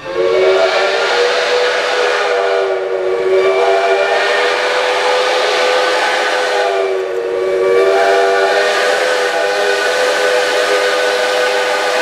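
Steam locomotive's chime whistle sounding a chord of several notes in about three long blasts that run almost together. The pitch sags slightly as each blast opens, over a steady hiss of steam.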